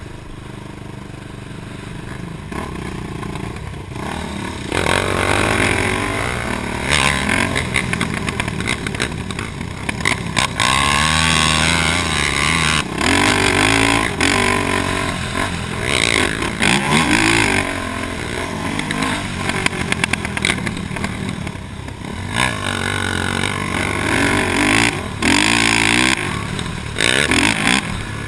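A 2006 Honda TRX450R sport quad's single-cylinder four-stroke engine revving up and down over and over as it is ridden hard on a dirt track, heard from a helmet-mounted camera. It gets clearly louder about five seconds in.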